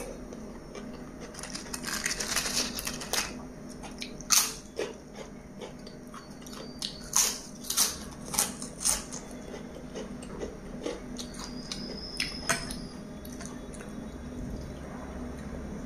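Close-miked eating: a string of sharp crunches as crisp papad is bitten and chewed, densest through the middle, with soft squishing of rice being mixed by hand.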